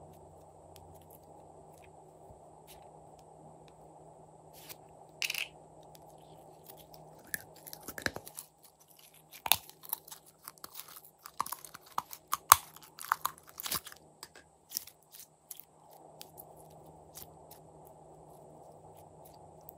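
Glossy slime being squeezed and stretched by hand: a run of sticky clicks, pops and crackles through the middle, quieter handling before and after.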